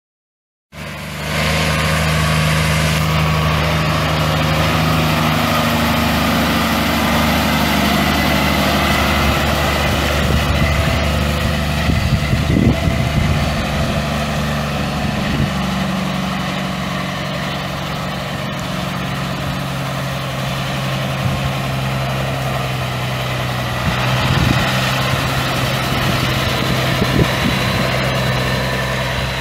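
Caterpillar C12 inline-six turbo diesel in a Freightliner FLD120 semi truck idling steadily. The sound comes in abruptly about a second in.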